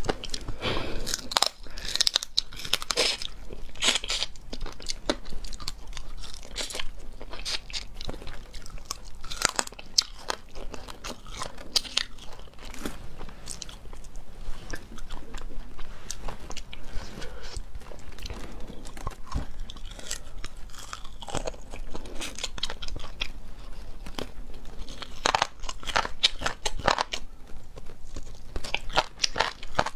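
Close-miked crunching, biting and chewing of mala-spiced chicken pieces on the bone, a series of sharp, irregular crunches.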